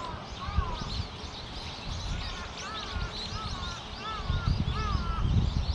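Birds calling over and over, short arched calls coming several times a second, with a low wind rumble on the microphone that gusts louder about four seconds in.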